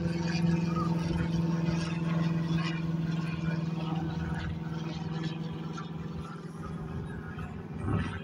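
Airliner engines droning steadily as the aircraft climbs away after takeoff, slowly fading as it gets farther off.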